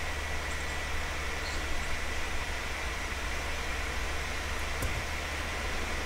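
Steady white noise for sleep: an even, unchanging hiss across the whole range, with a low rumble underneath and a faint steady high tone.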